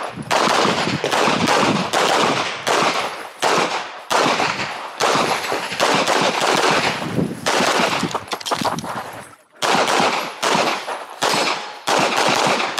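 CZ Shadow 2 pistol firing rapid strings of shots during a practical-shooting stage run, each shot ringing out. There are short gaps between strings and a longer break about nine and a half seconds in.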